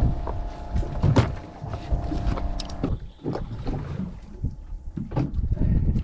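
Wind buffeting the microphone aboard a small open boat at sea, a rumble that rises and falls, with a faint steady hum in the first half and a few sharp knocks, the loudest about a second in.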